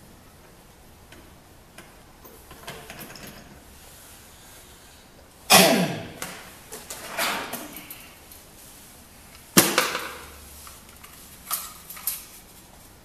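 Walk-through door with a newly fitted entry latch being worked: two loud bangs about four seconds apart, each ringing briefly, with smaller clicks and rattles of the latch and knob between.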